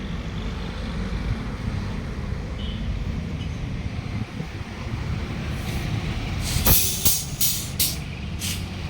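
Steady low engine rumble, with a series of short, sharp hisses of compressed air in the last few seconds.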